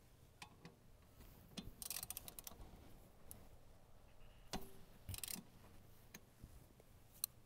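Faint clicking of a socket ratchet loosening the drain bolt on a tractor's front gear case, in two short runs of rapid clicks about two and five seconds in, with a few single clicks and taps of the tool against the bolt.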